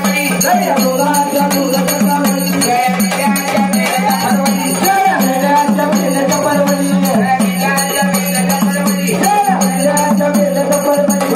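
Live gondhal folk-devotional music: a hand-held drum and jingling percussion keep a steady beat under a held low drone and a wavering melody line.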